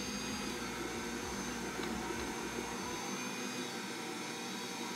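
Bosch stand mixer running steadily with a steady whine, its dough hook kneading the flour and proofed yeast mixture into dough under the bowl's lid.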